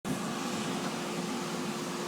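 Blower running steadily: an even whir with a constant hum.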